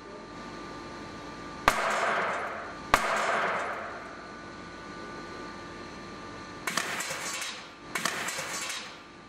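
Overheated steel whipped-cream chargers (nitrous oxide cartridges) failing: a sharp pop about two seconds in and another a second later, each followed by about a second of rushing, fading gas. Near the end come two short crackling, rattling bursts, over a faint steady hum.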